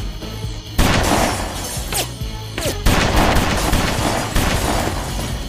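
Two loud bursts of gunfire and crashing, about a second in and again about three seconds in, over background music.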